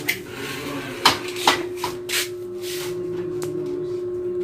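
Four or five sharp clicks and knocks from a caulking gun being handled at a window frame, the first the loudest, over a steady low hum.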